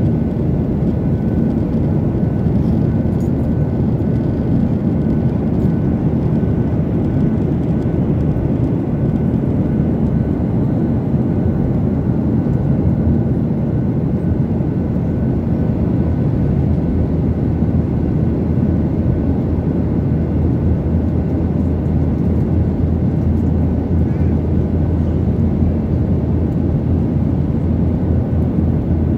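Steady cabin noise of an airliner in flight: an even low rush of engine and airflow noise, heard from inside the cabin, with a faint steady tone above it.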